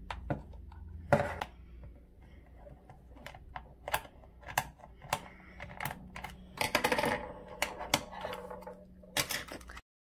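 Small screwdriver working the battery-cover screw of a plastic drone remote controller, then the cover being worked loose: irregular light plastic clicks and taps, busiest about seven seconds in. The sound cuts off just before the end.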